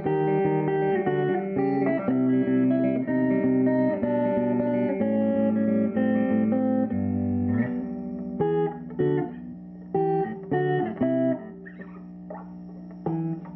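Electric guitar played through a 1951 Gibson BR-6 tube amplifier: a steady run of picked notes, then from about eight seconds in, short chord stabs with pauses between them.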